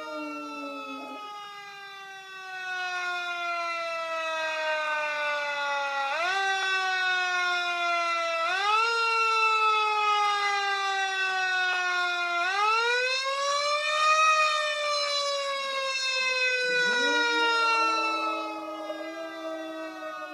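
Fire truck siren wailing in long, slowly falling glides, swept back up in pitch three times and then rising and falling once. A West Highland white terrier howls along, one held note at the start and another from about three quarters of the way in.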